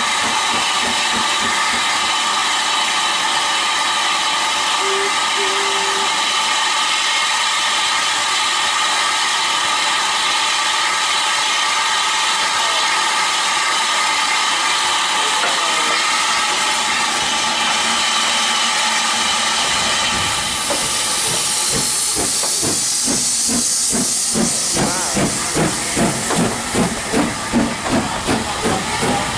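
Southern Railway S15 steam locomotive No. 847 arriving: a steady hiss of escaping steam for most of the time. About twenty seconds in a louder, sharper hiss sets in, followed by rhythmic steam beats about two a second as the engine draws past close by.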